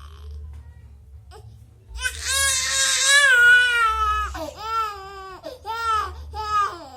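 Baby crying: one long wail starting about two seconds in, then three shorter cries.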